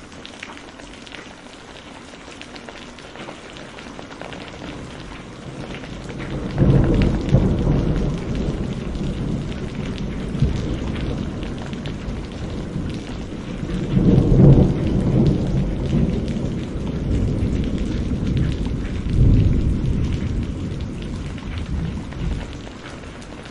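Heavy rain falling steadily, with a long rolling rumble of thunder. The thunder starts about six seconds in, swells three times and dies away near the end.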